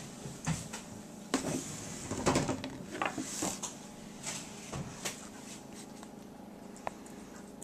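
A cat eating flakes of tilapia off a wooden tabletop: scattered light clicks and knocks, with a few short scraping rustles in the first half.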